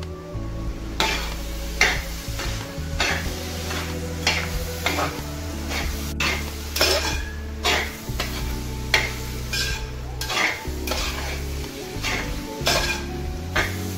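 A metal spoon scraping around a metal pot as onions, shallots and curry leaves are stirred while they sauté in hot coconut oil, with a soft sizzle under the strokes. The scrapes start about a second in and come about one or two a second.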